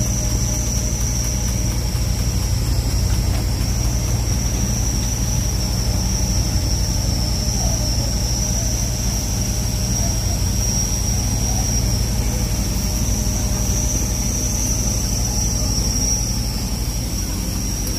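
Purse seiner's engine and deck machinery running steadily: a constant low drone with a steady high-pitched whine over it.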